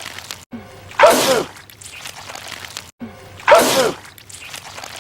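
A man sneezing, the same sneeze played twice on a loop about two and a half seconds apart. Each one is a sudden loud burst with a cry that falls in pitch.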